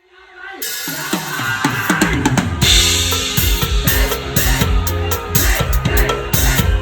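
Live drum kit playing with the band, heard close to the drums: a fast run of hits with falling pitch leads into a steady kick-drum beat, with a cymbal crash about three seconds in.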